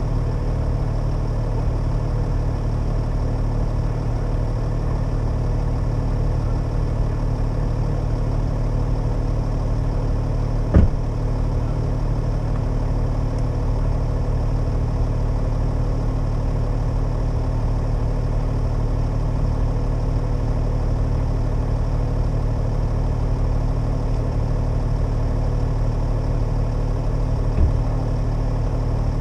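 A steady mechanical hum like an idling engine, with a constant low rumble under it. A light knock comes about eleven seconds in and another near the end.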